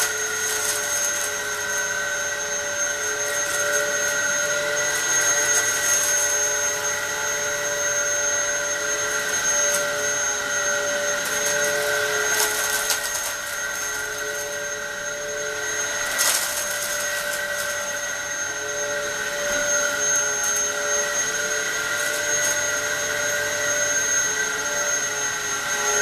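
Dyson DC07 Origin upright vacuum cleaner running on carpet: a steady motor whine made of several tones, with scattered sharp clicks as grit and other debris are sucked up, the strongest about two-thirds of the way through.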